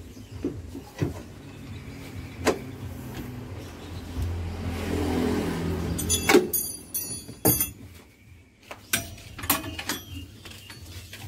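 Ratchet tie-down straps clicking and the motorcycle knocking against its straps as it is cinched down in a van, over a steady low hum. A swell of vehicle noise rises and fades around four to six seconds in.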